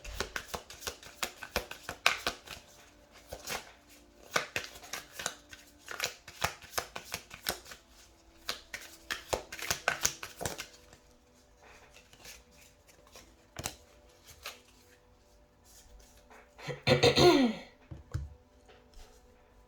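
A tarot deck being shuffled by hand: dense, rapid card clicks for about ten seconds, then scattered taps. A brief, louder rustle of cards comes near the end.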